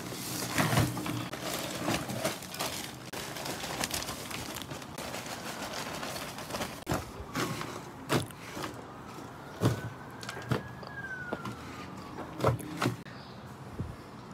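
Peat-based soil being tipped out of its plastic bag and spread by hand in a hard plastic kiddie pool: a dry rustling and scraping, with several sharp knocks.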